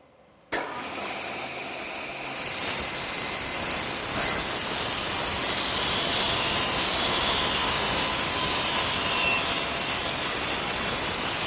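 Table saw running and ripping a wooden board along its length. The noise grows louder and brighter about two seconds in, with a faint steady whine over it.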